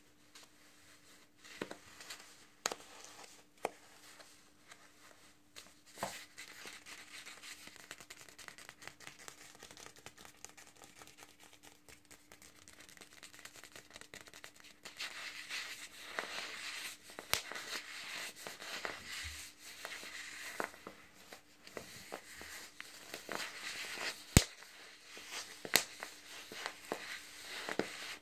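Fingernails scratching and squeezing a skein of metallic yarn and its paper label band: a soft crinkling scratch that grows louder about halfway through, broken by scattered sharp clicks.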